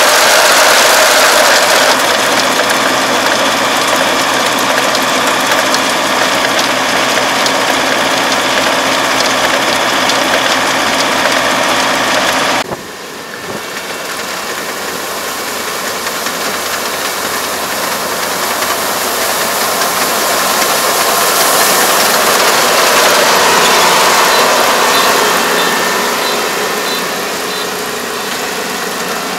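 Kubota four-row combine harvester running steadily with its diesel engine close by. About 13 seconds in the sound cuts to the combine working farther off in flattened rice; its noise rises slowly and then eases off near the end.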